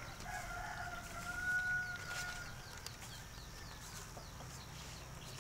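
A rooster crowing once, one long call of about two seconds beginning just after the start.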